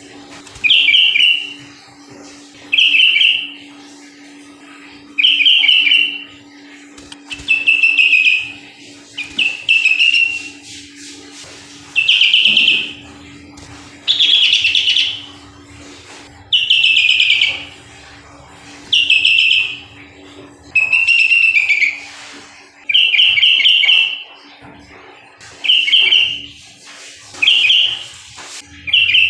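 Sooty-headed bulbul (kutilang) singing steadily: loud short chirping phrases repeated about every two seconds, over a faint steady hum.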